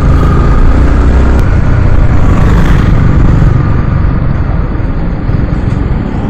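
Yamaha R15 sport bike on the move, its single-cylinder engine running under a heavy wind rumble on the action-camera microphone.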